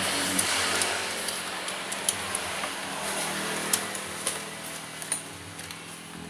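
Motor vehicle engine noise that swells about half a second in and then slowly fades, with scattered light clicks.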